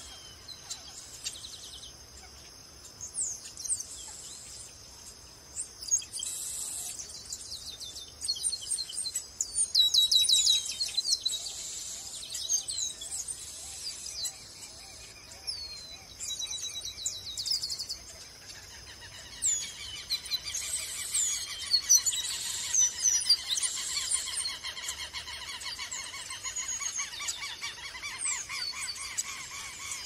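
Chestnut-capped blackbird (Chrysomus ruficapillus) singing: bursts of high chirps and quick whistled sweeps, coming thick and overlapping. A steady lower buzz joins a little past halfway.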